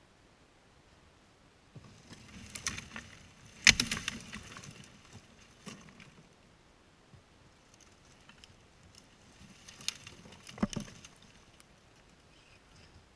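Dead tree branches cracking and snapping as they are broken and pulled free for firewood, with twigs crackling around them. The loudest snap comes about three and a half seconds in, and a second burst of cracks about ten seconds in.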